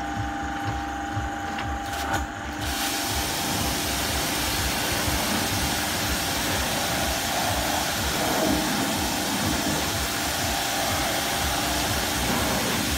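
High-pressure washer running with a steady hum and low rapid pulsing. About two and a half seconds in, the Mosmatic Hurricane undercarriage washer's spray jets open, and a loud, steady hiss of high-pressure water blasting against the pavement and the underside of the truck takes over.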